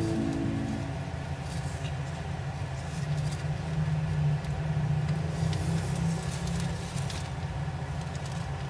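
Background music ends in the first second, leaving a steady low rumble with faint scattered crackles: the rustle of a tray of mealworms crawling over a picked-clean quail carcass.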